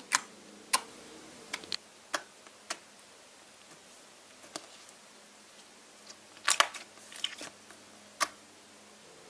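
Clear slime being poked, squeezed and pressed by hand, giving about a dozen irregular sticky clicks and pops. The loudest come in a quick cluster about six and a half seconds in.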